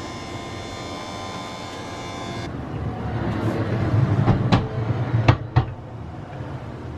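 Ceiling-track patient lift: its motor whines steadily as it winds the spreader bar up, cutting off about two and a half seconds in. Then the lift unit rolls along its ceiling rail with a low rumble and several sharp clacks.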